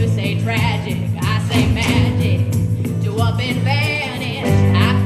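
Live music: a singer holding wavering, wordless notes over a steady bass-heavy accompaniment.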